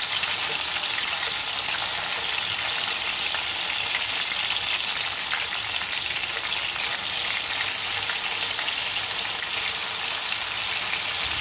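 Masala-coated fish steaks sizzling steadily as they shallow-fry in hot oil in a nonstick pan, with a wooden spatula now and then scraping against the pan.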